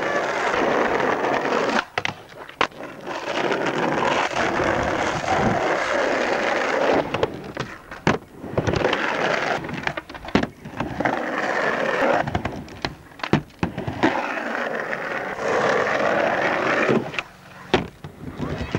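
Skateboard wheels rolling on skatepark ramps in several long runs, each a few seconds, broken by sharp clacks and slams of the board hitting the surface.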